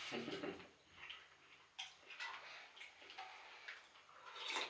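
A few faint, scattered clicks and light knocks against a quiet background.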